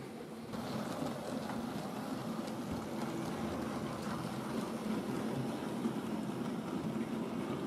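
Model railway tank locomotive hauling a train of goods wagons along the track: a steady running noise of the train on the rails that gets louder about half a second in as it comes close.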